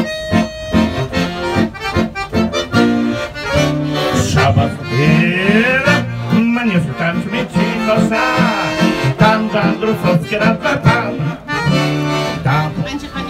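Paolo Soprani piano accordion playing a lively instrumental folk tune, melody over rhythmic chords.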